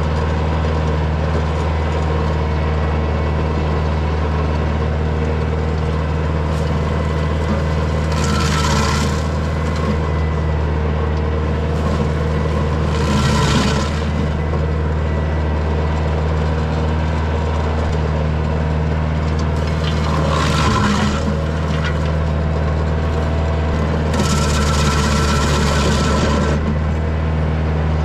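Diesel engine of a Kioti DK40SE tractor running steadily, driving a Woodland Mills WG24 PTO stump grinder. Four times the grinder's cutter bites into a red pine stump, adding a coarse grinding noise for a second or two each time.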